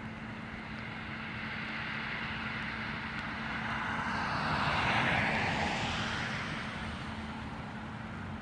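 A vehicle passing by: its rushing noise swells to a peak about five seconds in and then fades, over a steady low hum.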